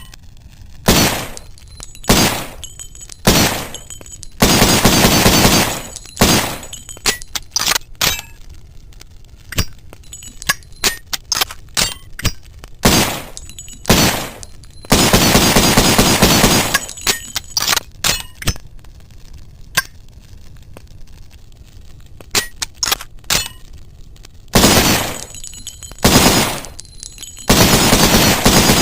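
Mauser C96 pistol sound effect: single gunshots spaced a second or more apart, three stretches of a second or longer where shots come in rapid bursts, and small metallic clicks and clinks between the shots.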